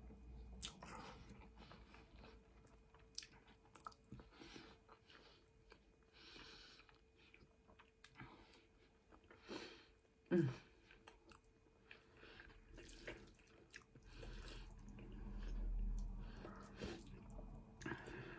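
Quiet close-up mouth sounds of someone eating spaghetti: chewing and slurping, with small clicks of a wooden fork in the pan. About ten seconds in comes a short low vocal sound, and a low rumble sits under the last few seconds.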